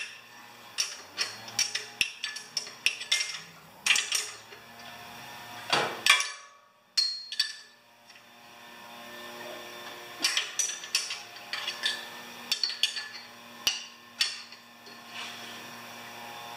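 Steel hand tools clinking and knocking at an irregular pace, as sockets and wrenches are picked up, sorted and fitted. There is a brief pause about six seconds in.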